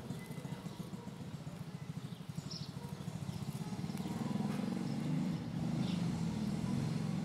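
Kitten purring steadily while being stroked, the purr growing louder about four seconds in, with a few faint rustles.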